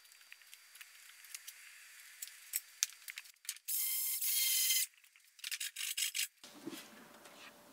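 Hand file rasping the edge of a wooden wall board to shave it down to fit: light clicks and knocks at first, then one long loud scraping stroke a few seconds in, followed by several shorter strokes.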